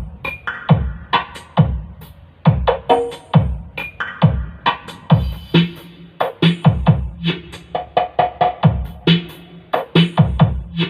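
DJ remix dance music with drum-machine kick drums and synth chord stabs, played loud through a pair of loudspeakers for a sound check.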